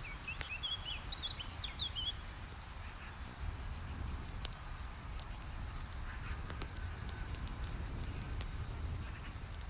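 Campfire crackling, with scattered sharp pops over a low steady rumble. A small bird twitters a quick run of chirps during the first two seconds.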